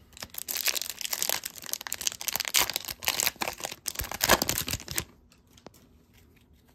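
The wrapper of a 2021-22 O-Pee-Chee hockey card pack being torn open and crinkled by hand: a dense crackling rustle lasting about five seconds, then stopping.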